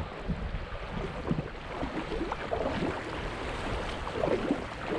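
Shallow seawater lapping and splashing close by in short, irregular slaps, with a light wind rumble on the microphone.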